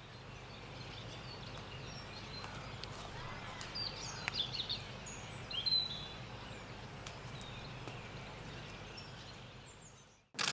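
Winter woodland ambience: a steady low hiss of outdoor background with a few short, high bird chirps about four to six seconds in. It ends with a brief sharp burst and then cuts off.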